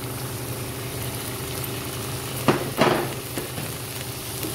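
Chopped vegetables sizzling in oil in a frying pan while a wooden spatula stirs them, over a steady low hum. Two sharp knocks of the spatula against the pan come about two and a half seconds in.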